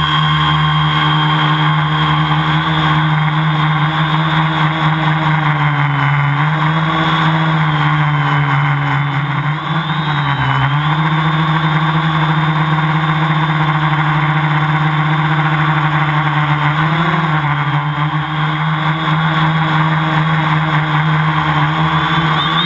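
Tricopter motors and propellers droning steadily from the onboard camera, the pitch dipping briefly three times as the throttle eases off and comes back up.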